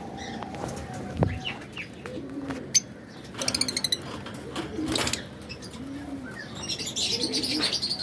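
Caged lovebirds chirping, with quick high chattering trills about halfway through and again near the end, and several short low cooing calls in between.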